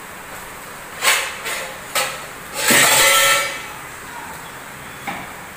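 Steel cooking pots and pans knocking against each other and the counter as they are handled: a few sharp knocks, then a longer, louder scraping clatter about three seconds in, and one more knock near the end.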